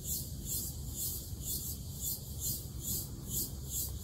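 Insects calling in a high-pitched pulsing chorus, about three pulses a second, over a steady low rumble.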